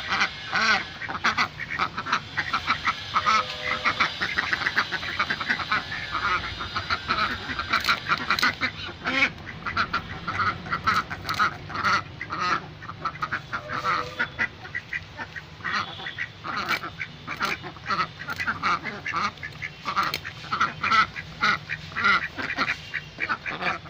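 Ducks quacking over and over in short, quick calls.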